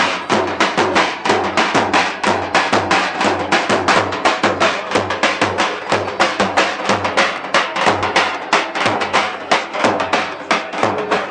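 Davul drum music in a fast, steady halay rhythm, several beats a second.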